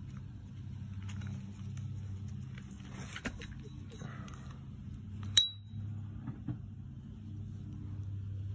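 A large steel socket on stacked drive adapters being handled, with light knocks and one sharp metallic clink about five seconds in that rings briefly in high tones, over a steady low hum.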